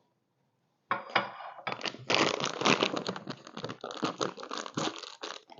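Plastic ration-pack snack packet of mixed nuts being crinkled and torn open. The crinkling starts about a second in and goes on in quick, uneven handfuls.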